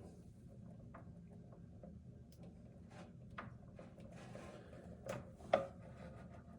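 Faint clicks and rubbing of plastic fittings, tubing and clips being handled while filters are swapped on a 5-stage water filter system, with one sharper click a little after five seconds in.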